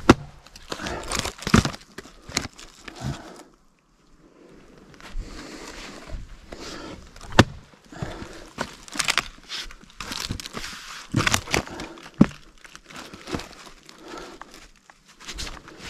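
Fiskars splitting axe striking firewood on a chopping block: a few sharp, loud cracks of the blade biting and the wood splitting. Between the strikes come rustling and clattering as split pieces and bark are handled and tossed onto the pile.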